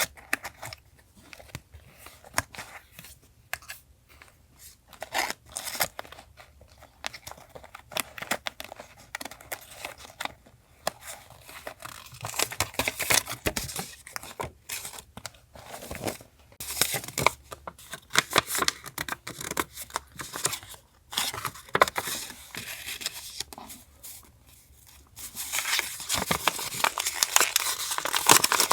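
Paper being handled for a journal collage: scattered crinkling, rustling and tearing, turning into a denser, continuous rustle near the end.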